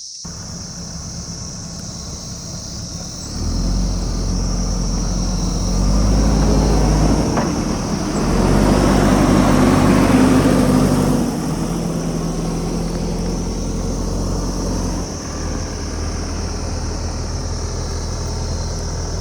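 Diesel engine of a JCB backhoe loader running, its pitch and loudness stepping up as it works under load and loudest about halfway through, then settling back to a steady run; a single sharp knock about seven seconds in.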